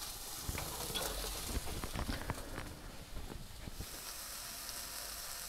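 Steak sizzling and crackling as it sears in a hot stainless steel pan with no oil, the pan hot enough to pass the water-ball test. Many small pops over a steady hiss, the pops thinning out toward the end.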